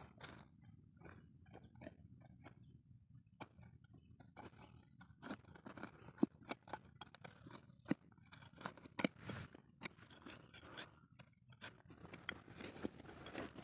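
A small hand tool and fingers scraping and digging through loose soil, a run of irregular scratches and small clicks.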